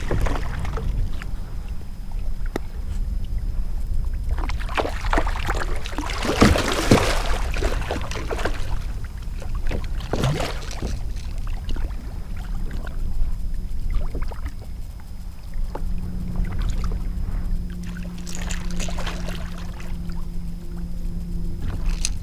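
Wind buffeting the microphone and water slapping around the kayak, with a burst of splashing about six to eight seconds in as a hooked king mackerel thrashes at the surface, and smaller splashes later.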